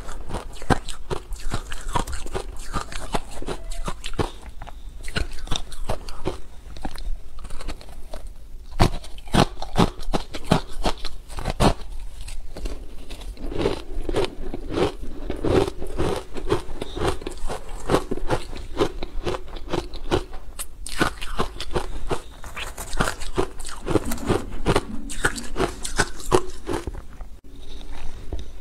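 Close-miked crunching and chewing of frozen ice chunks coated in green powder, a rapid run of sharp crunches as each spoonful is bitten through.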